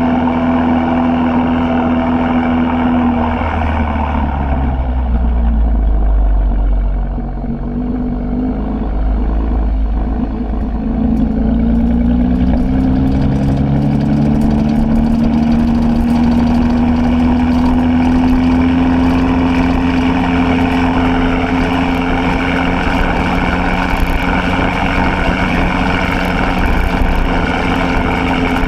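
2016 Chevrolet Camaro RS running through a Borla ATAK axle-back exhaust while driving. It holds a steady note, eases off a few seconds in with a deep low rumble, then rises slowly in pitch as the car accelerates and settles into a steady cruise.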